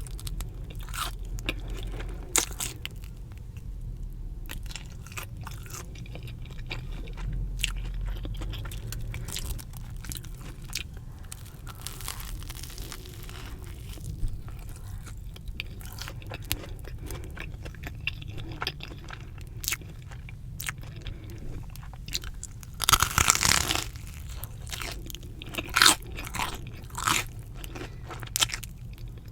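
Close-miked eating of crunchy fried Korean cheese dogs: crisp crunching bites and chewing, with a loud burst of crunching about three quarters of the way in and a few more sharp crunches after it.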